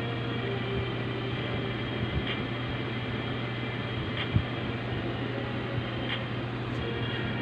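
Steady low electrical hum with hiss. Faint ticks come about every two seconds, and there is a short soft thump about halfway through.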